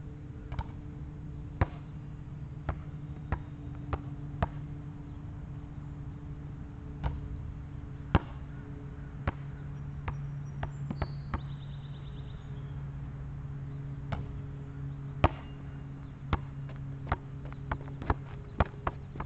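Basketball bouncing on an outdoor asphalt court: single sharp bounces at uneven intervals, coming quicker near the end as it is dribbled. A steady low hum runs underneath.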